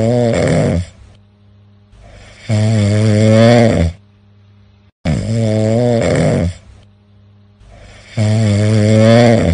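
Loud, tuneful snoring: a snore already under way at the start, then three more long pitched snores at even intervals of about two and a half seconds, with quieter breaths between them.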